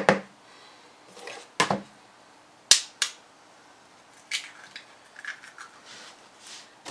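Eggs being cracked open over a mixing bowl: a handful of separate sharp taps and cracks with quiet between them, the sharpest near the middle.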